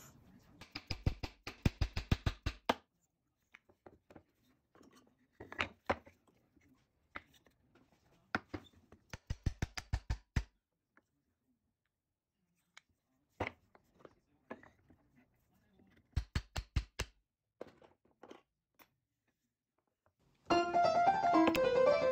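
Quick runs of sharp wooden taps, about five a second, in several short bursts, as wooden dowel axles are tapped into a wooden toy car's body and wheels. Piano music comes in near the end.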